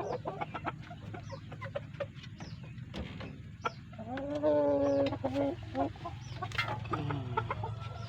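Chickens clucking, with one louder drawn-out call about four seconds in and a shorter one near the end, over a run of short, high, falling chirps repeating about twice a second.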